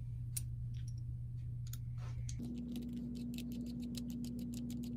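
Small steel parts of a Martini Cadet breech block clicking as the firing-pin bushing is fitted back in by hand. From about halfway a screwdriver works in the breech block, with a fast, even run of ticks, about seven a second.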